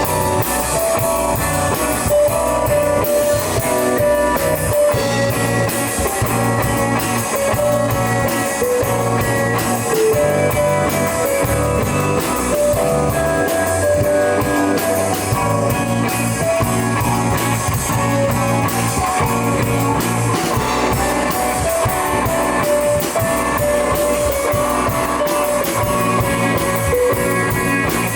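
Live instrumental prog rock from a band: guitar and drum kit playing steadily, heard through a camera's built-in microphone.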